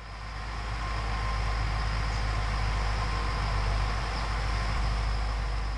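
Motor grader's diesel engine running at a steady pace as it scrapes a dirt roadside: a low rumble with a noisy haze over it, fading in over the first second.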